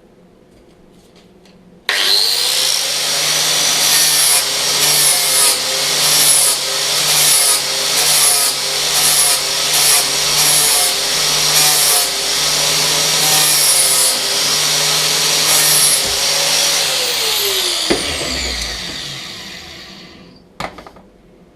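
Angle grinder switched on and cleaning steel back to bare metal ready for welding, its sound swelling and easing about once a second with each pass. Near the end it is switched off and its pitch falls as it spins down, followed by a single click.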